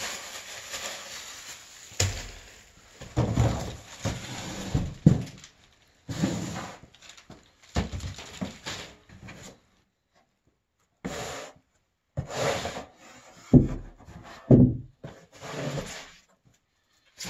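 Handling noises as a plastic pulk sled and its metal tube tow-bar frame are lifted out of the packing: irregular rubbing, scraping and knocking, with two louder knocks after the middle and a few short silent gaps.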